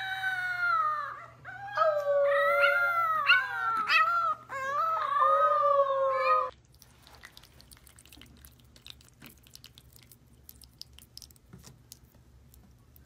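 French bulldog puppy howling: three long, wavering calls, each sliding down in pitch, that stop abruptly about six and a half seconds in. Afterwards there are only faint scattered clicks.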